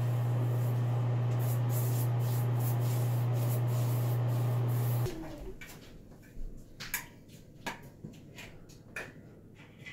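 A steady low hum with hiss that cuts off suddenly about halfway through. After it come scattered sharp clicks and taps from a caulk gun being worked along a tiled shower corner.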